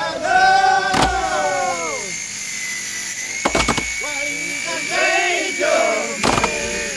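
Background music: a song with a singing voice and sharp percussive hits every few seconds.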